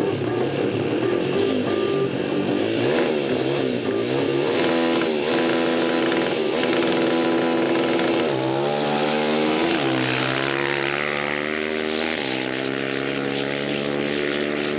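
Two quad bike (ATV) engines revving at the start line of a sand drag race. About eight seconds in they launch and accelerate hard, the pitch climbing and dropping back twice as they shift up through the gears.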